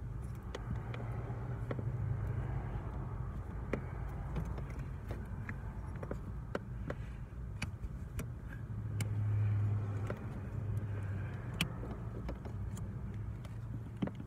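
Scattered small clicks and rubbing as a new rubber pedal pad is stretched and pressed onto a car's metal brake pedal, over a steady low hum.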